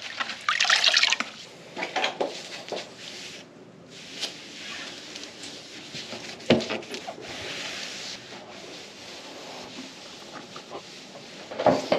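Grout being worked over shower tile by hand: irregular rubbing and scraping strokes, strongest in the first few seconds, with one sharp knock about six and a half seconds in.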